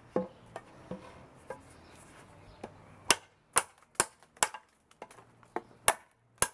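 Small 1095 carbon-steel chopper blade chopping into the end of a rosewood board. After a few light taps, about seven sharp, hard strikes come roughly two a second, starting about three seconds in.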